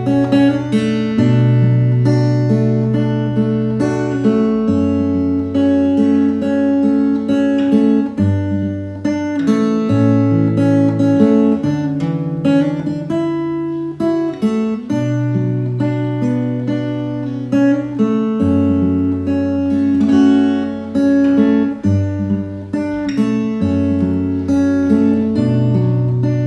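Acoustic guitar playing an instrumental break in a slow ballad, picked and strummed chords over low bass notes that are held and change every couple of seconds.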